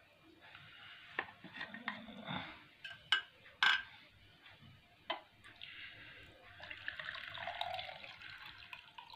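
A few sharp plastic clicks and knocks as the citrus press's juice jug is lifted off. Then, from about halfway in, fresh citrus juice is poured from the plastic jug into a glass mug, a steady trickling splash.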